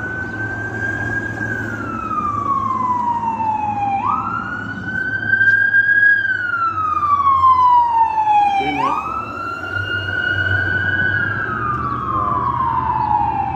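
Ambulance siren on wail: a tone that sweeps up quickly and then slides slowly down, three cycles about four and a half seconds apart, over a low vehicle rumble.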